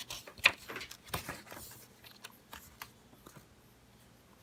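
Pages of a small paperback children's book being handled and turned: a run of soft paper rustles and light clicks, densest over the first two seconds, then a few scattered ticks.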